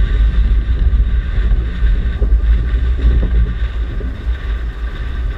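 Renault Duster SUV driving, its engine and tyres running under a heavy low rumble of wind buffeting the microphone. The sound eases a little toward the end.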